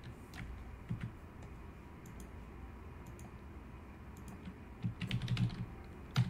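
Computer keyboard keystrokes and mouse clicks: a few scattered clicks, then a quick run of keystrokes about five seconds in and one more click near the end.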